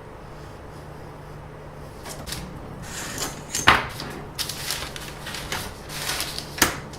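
Rustling handling noises with two sharp knocks, one about halfway through and a second near the end.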